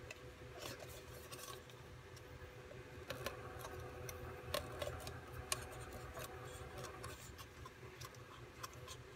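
Faint, irregular clicks and crinkles of thick aluminum being bent by hand: the cut strips of an old-style aluminum beer bottle being pushed down one by one with the fingers. A faint steady hum runs underneath.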